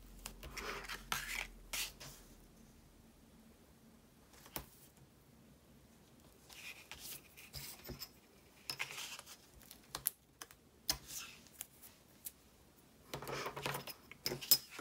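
Double-sided adhesive tape being pulled off its roll and pressed along a cardstock flap, with rustling of the card and small clicks and taps on the cutting mat, coming in short bursts with a quiet stretch in between.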